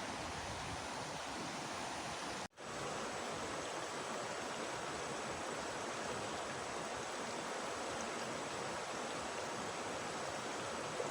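Steady rushing of flowing stream water, with a brief dropout about two and a half seconds in.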